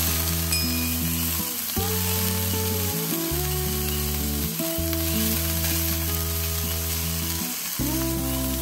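Shredded broccoli and carrots sizzling as they fry in oil in a stainless steel pan, stirred with a spatula. Under it, background music with sustained chords that change every second or two.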